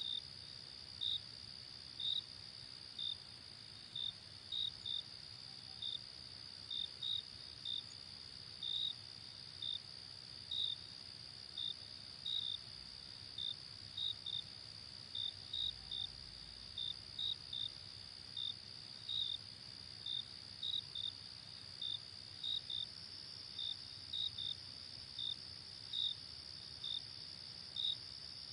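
Chirping insects: a steady high trill under short, louder chirps that come about once or twice a second, often in quick pairs.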